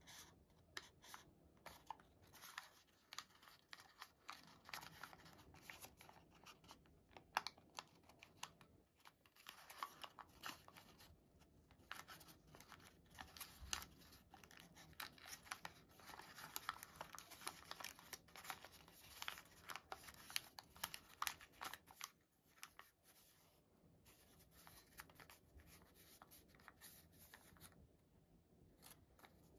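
Origami paper crinkling and rustling under the fingers as it is creased and collapsed into a twist fold: many small, irregular crackles, fewer in the last few seconds.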